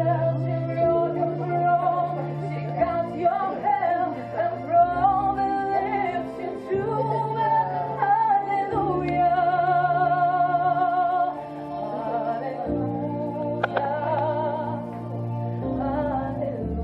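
Music: a high singing voice with vibrato holding long notes over sustained low chords that change every few seconds.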